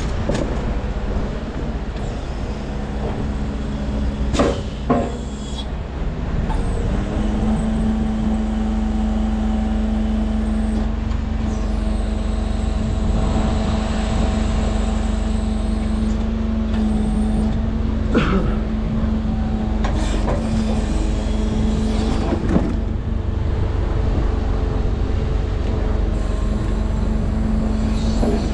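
Mercedes-Benz Arocs truck's diesel engine running steadily, rising to a higher, held engine speed about seven seconds in, with a few sharp knocks and clatters over it.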